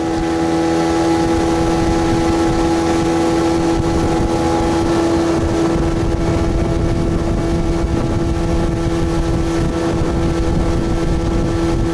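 Motorboat engine running at a steady high speed, with wind on the microphone.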